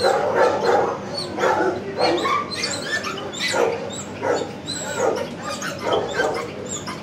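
Dogs barking in a shelter kennel block: a string of separate barks, roughly one a second.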